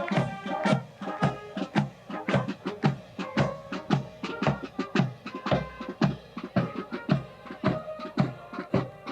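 Music with quick drum strikes, about three to four a second, under pitched instrument notes.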